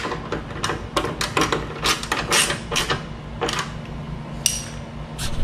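A 10 mm wrench tightening the rear nut on a motorcycle's fuel tank console: a run of sharp metallic clicks at an uneven pace, with a brief high ring about four and a half seconds in.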